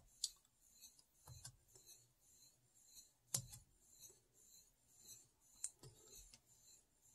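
Near silence broken by a few faint, scattered clicks, three of them sharper than the rest, while a section of a book is looked up.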